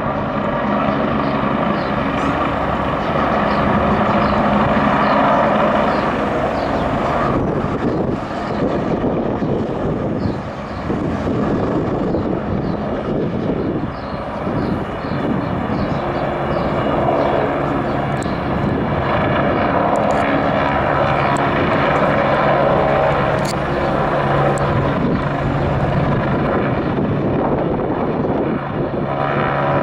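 NYPD police helicopter hovering overhead: a steady drone of rotor and turbine engine. A low hum becomes stronger about halfway through.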